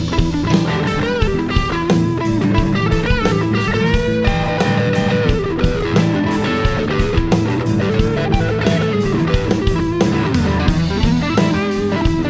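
A rock band plays live: electric guitars, bass guitar and a drum kit, with wavering lead-guitar lines over a steady beat.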